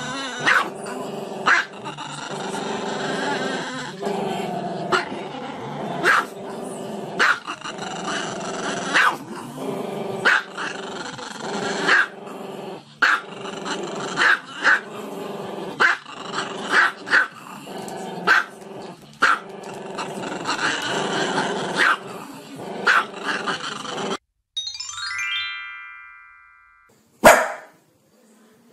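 A small dog barking in short, sharp yaps at uneven intervals, roughly one a second, over steady music. Near the end the music stops, a falling stepped tone sounds, and then comes a single bark.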